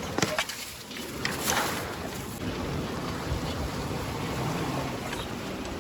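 Steady wind and water noise, with wind buffeting the microphone and a few sharp clicks in the first two seconds.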